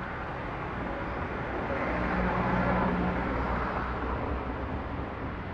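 Street traffic ambience, with a vehicle passing that swells to its loudest between about two and three and a half seconds in, then fades.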